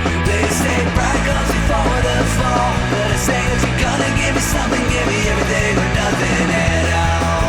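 Punk rock band recording playing loud and steady: electric guitars, bass and drums with crashing cymbals.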